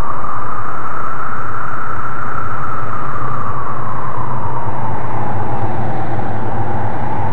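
A loud, steady rushing noise with a whine in it that slowly rises and then sinks back, over a low hum.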